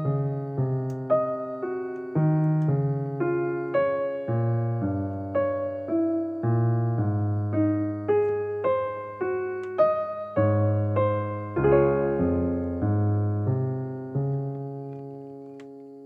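Background keyboard music in a piano sound: a slow melody of struck notes, about two a second, over held bass notes, fading out near the end.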